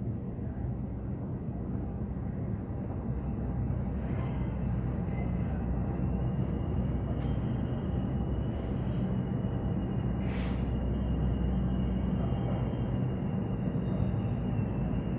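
Container freight train passing close by: a steady rumble of the wagons rolling over the rails. From about halfway a faint steady high tone joins in, and about ten seconds in there is one short, sharp noise.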